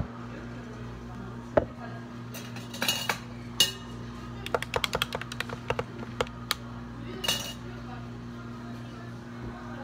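Knocks and clinks of plastic cups and ice being handled at a cafe counter while iced drinks are made, with a quick run of light clicking about halfway through. A steady low hum of cafe equipment sits underneath.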